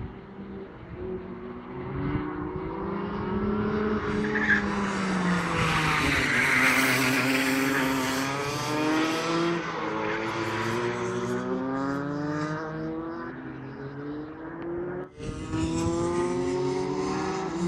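Rotax two-stroke racing kart engine running on track, its pitch repeatedly rising and falling as the driver accelerates and lifts off. The sound breaks off briefly about fifteen seconds in, then resumes.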